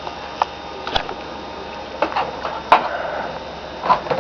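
About six irregular clicks and knocks over the steady hum of a running computer.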